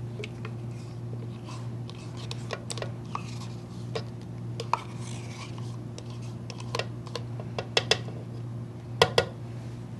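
Kitchen utensil and dish clatter as yogurt is added to a blender jar: scattered light clicks and taps, with the loudest pair about nine seconds in, over a steady low hum.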